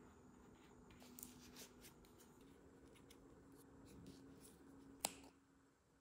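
Leather and foam being handled and trimmed by hand: faint rustling and a few soft ticks over a steady low hum, then one sharp scissor snip about five seconds in.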